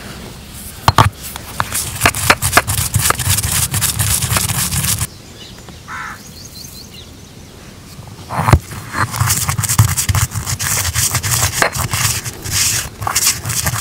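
Whole coriander seeds, fennel and cumin being ground, a gritty scraping crackle of crushing seeds. It stops abruptly about five seconds in and starts again with a sharp click a few seconds later.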